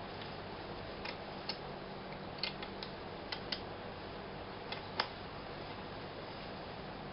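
A knife whittling dried, very hard sycamore by hand, shaping a cane's head: about ten sharp little clicks and snaps at irregular intervals as the cuts bite through the wood. The strongest snap comes about five seconds in, over a steady background hiss.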